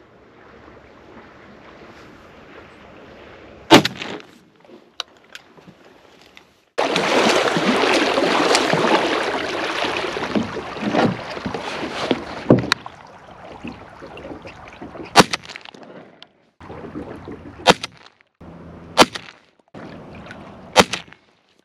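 A semi-automatic shotgun fires once, very loud, about four seconds in. Then comes the steady rush of a kayak moving across the water, with several more sharp shotgun reports in the last seconds: follow-up shots at a crippled diving duck that keeps going under.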